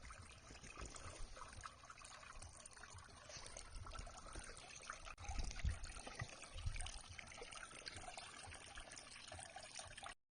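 Small pump-fed water feature, with water trickling and splashing down over rocks into a plastic container, running steadily until it cuts off suddenly near the end. Low thumps come in partway through.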